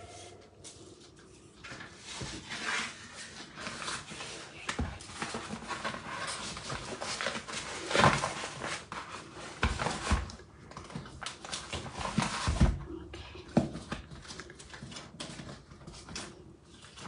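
Rustling of a kraft-paper-wrapped package and twine being handled on a table, with scattered light knocks as the box is lifted, set down and the twine wound around it.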